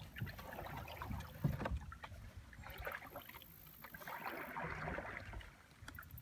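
Kayak paddle strokes in calm water, three strokes with the splash and drip of the blade entering and leaving the water. There is a sharp knock about a second and a half in.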